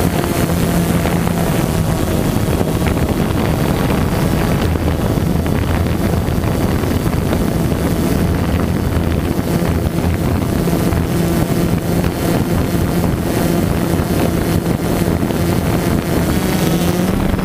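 DJI Phantom 2 quadcopter's four electric motors and propellers humming steadily as it hovers, heard from its own on-board camera, the pitch shifting slightly as the motors adjust. Wind rushes over the microphone throughout.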